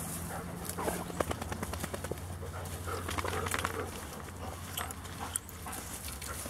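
Several dogs moving about, with scattered short clicks and rustles throughout and a brief louder patch of sound about three seconds in.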